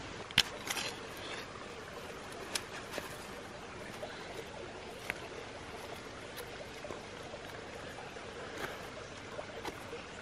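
Scattered small ticks and scrapes from hands and a pocket knife handling and trimming the stem of a freshly picked bolete mushroom, over a steady background hiss. The sharpest tick comes about half a second in.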